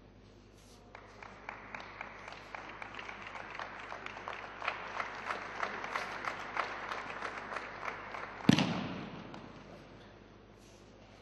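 Scattered hand claps from spectators begin about a second in and reach a few claps a second. About eight and a half seconds in comes one loud thud with a hall echo: a judoka thrown onto the tatami, landing in a slapping breakfall.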